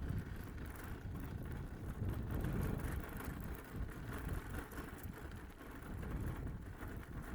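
Wind on the microphone and the bicycle rolling along while it is ridden: a deep, uneven rumble with no clear tone.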